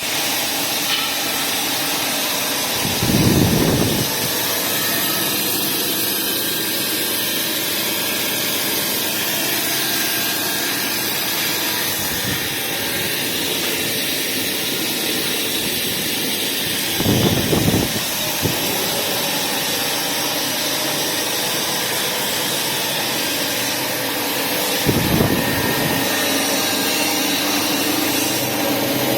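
Feed pellet machine running with a steady loud hiss and whir. Three brief low rumbles come through: about three seconds in, after about seventeen seconds, and near the end.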